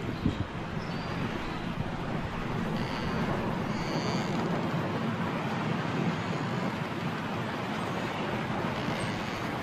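Strong wind blowing steadily, a dense, even rush of noise.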